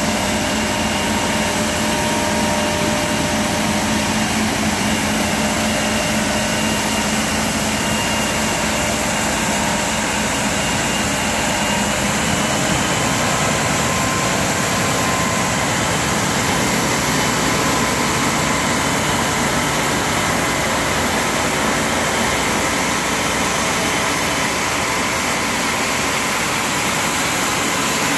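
Magnum Titanium truck-mounted road sweeper working: a steady, loud machine noise with faint high whining tones, as it sprays water and turns its gutter brushes on wet tarmac. A low hum in it fades out about halfway through.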